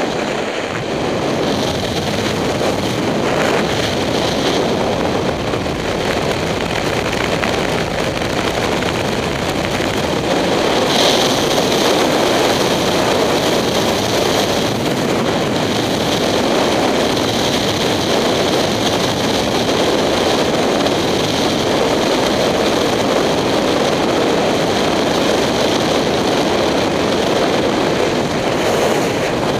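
Steady wind rush on a helmet-mounted camera microphone at road speed, with a 2007 Kawasaki Ninja 250's parallel-twin engine running underneath.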